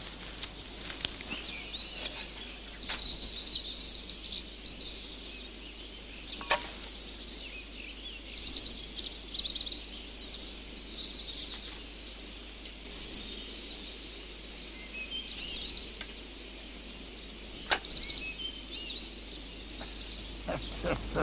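Woodland birdsong: birds singing short, rapid trilled phrases on and off over a faint steady hiss, with a sharp crack about six seconds in and another a few seconds before the end.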